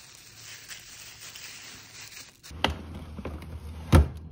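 Plastic bags of portioned raw meat rustling and crinkling as they are handled. Then a clear plastic freezer drawer is handled and pushed in, with two knocks, the second and louder about four seconds in, over a low hum.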